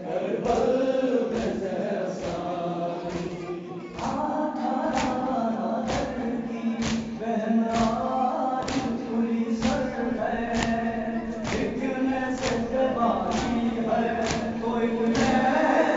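Male voice reciting an Urdu nauha (Muharram lament) in a slow, held melody, with other voices joining in. Under it, sharp thumps keep time about twice a second, the mourners' chest-beating (matam) that accompanies nauha.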